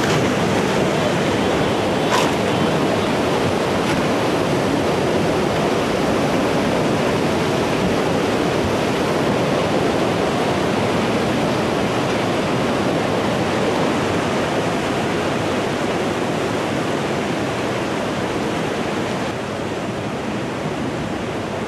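Tsunami floodwater surging over a seawall in a loud, steady, rushing torrent, easing slightly near the end.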